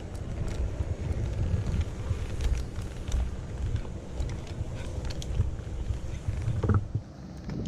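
Wind buffeting the microphone as a fluctuating low rumble, with scattered light clicks and knocks.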